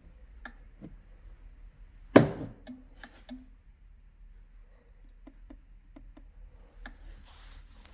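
Scattered light clicks and knocks of hands working with equipment, with one loud knock about two seconds in and a short hiss near the end.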